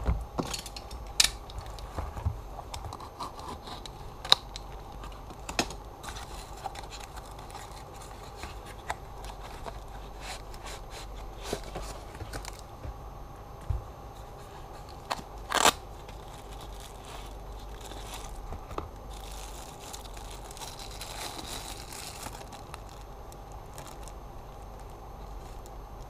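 Packaging being opened by hand: a padded mailer torn and crinkled, with scattered sharp clicks and knocks as things are handled on the desk. A faint steady hum runs underneath.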